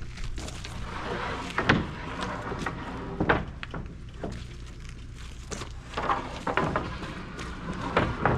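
Oak boards knocking and clattering as they are handled and stacked, with a handful of sharp wooden knocks spread through, over a steady low hum.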